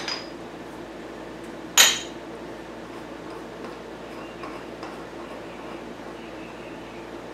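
Steel bar and press tooling clinking against each other as a flat piece of metal is set across a crankshaft on a shop press: a light clink at the start and one loud, ringing metal clank a little under two seconds in, with a few faint taps after. A steady hum runs underneath.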